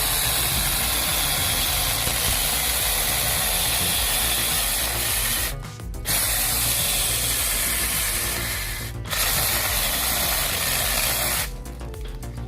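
Powered wood-cutting machinery running through wood, a dense steady grinding noise broken by short breaks about halfway through and near the end.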